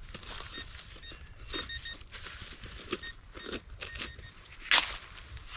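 Faint short electronic beeps at one steady pitch, coming singly and in small clusters, from metal-detecting gear, over scattered scraping and rustling in dirt and leaves. A sharper click sounds near the end.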